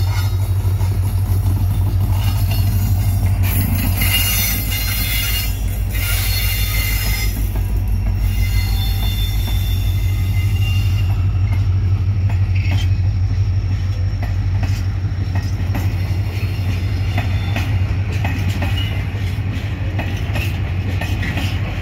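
Diesel locomotives hauling a train of phosphate hopper wagons past at close range: a steady, loud low engine drone, with high wheel squeal for several seconds near the start, then the wagons rolling by.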